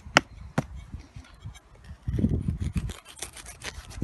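Sneeboer heart-shaped stainless steel trowel working hard, dry garden soil: a few sharp clicks near the start, then scraping and crunching of soil from about halfway.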